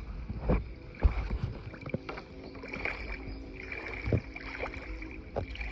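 Kayak being paddled on calm water, with three sharp knocks on the hull.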